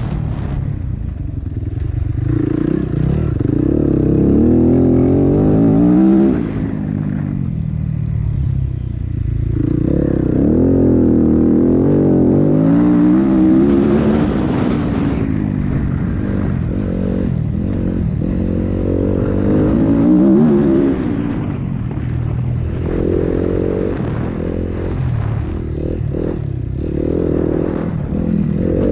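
Yamaha WR250F enduro bike's 250 cc four-stroke single-cylinder engine under hard riding, revving up and down repeatedly through the gears and corners, with occasional knocks from the bike over the rough ground.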